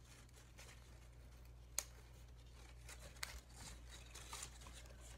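Faint rustling and crinkling of a paper-chain link being pulled apart and handled, with a single sharp click about two seconds in and a few softer ticks later, over a steady low hum.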